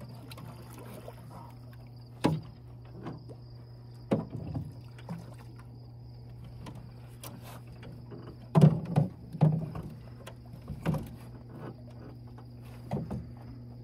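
Scattered sharp knocks and clunks on an aluminium jon boat, loudest in a cluster about two-thirds of the way through, over a steady low hum and the steady high chirring of crickets.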